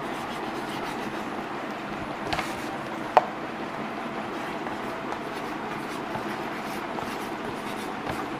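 Chalk writing on a blackboard over a steady background hiss, with a sharp tap of the chalk on the board about three seconds in and a softer one just before it.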